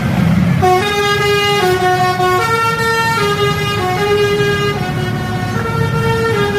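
Basuri telolet bus horn, a multi-tone musical air horn, playing a melody of held notes that step up and down in pitch, starting just under a second in, over a low rumble.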